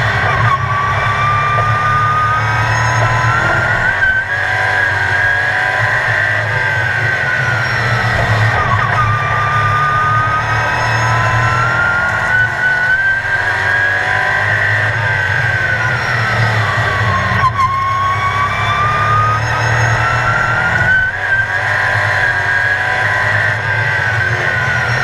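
Sportsman stock car engine at racing revs, heard from inside the car. Its pitch climbs steadily down each straight and drops when the driver lifts for the turns, repeating about every 8 to 9 seconds around the oval.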